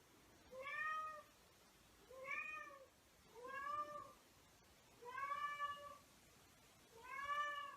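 Domestic cat meowing over and over: five drawn-out meows, about one every second and a half, each rising then falling in pitch.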